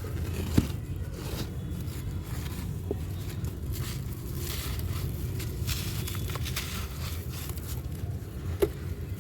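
A dry, crumbly yellow block being crunched and crumbled, with many small crisp crackles and scrapes, and two sharper knocks, one about half a second in and one near the end. A steady low rumble runs underneath.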